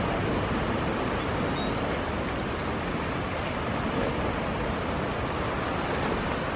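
Steady wash of ocean surf, with one brief sharp sound about four seconds in.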